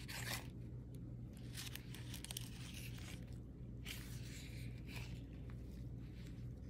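Paper pages and tags of a handmade junk journal rustling and crinkling as they are turned by hand, in several short bursts, over a steady low hum.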